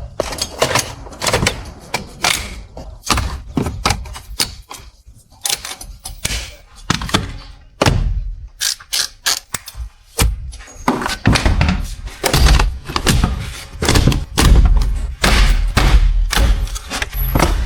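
A rapid, irregular series of knocks and thuds, like doors, panels and tools being handled during work on a car.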